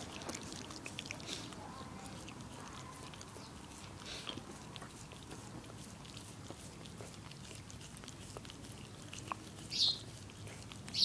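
Shetland sheepdog licking and smacking at a hard lollipop: soft, wet clicks of tongue and lips on the candy, with one brief louder noise near the end.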